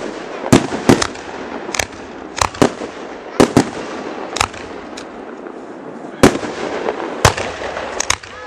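Fireworks going off: an irregular string of sharp bangs, about fourteen, one or two a second, over a steady hiss.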